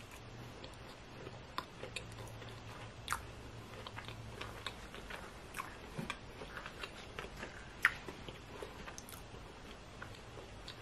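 Faint close-up biting and chewing of a McDonald's holiday pie, its sugar-glazed pastry crust giving scattered small crunchy clicks, the sharpest about eight seconds in.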